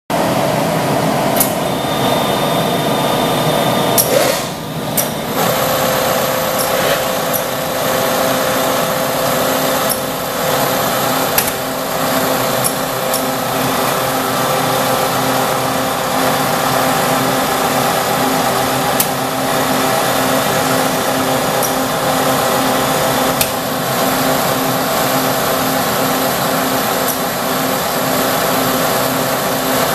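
Automatic copying shaper running under power: its electric spindle motors give a loud, steady whine. About four seconds in, a motor spins up with a rising tone that settles into a steady pitch, and a few sharp clicks come from the machine.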